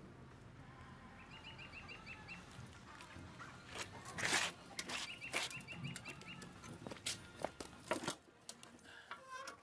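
A small bird singing two quick runs of rapid, repeated high chirps, with a few faint knocks and clicks in between.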